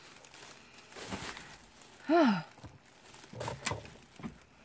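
Crinkling of blind-bag wrappers and light handling knocks, with a short falling hum from a woman's voice about two seconds in.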